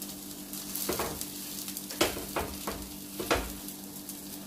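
Bread omelette frying in butter and oil on a hot non-stick tawa with a steady sizzle, under a faint low hum. A plastic spatula knocks and scrapes against the pan about five times between about one and three and a half seconds in as the omelette is folded over.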